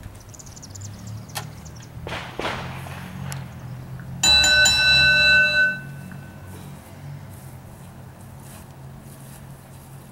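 A metal bell struck several times in quick succession about four seconds in, ringing out for about two seconds and fading: the bell that starts the wrestling match. Low background music runs underneath.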